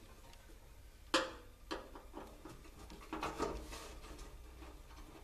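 Light handling noises as a Phillips screw comes out of a sheet-metal camp stove body: one sharp click about a second in, a softer one just after, and a short stretch of light clatter around three seconds in.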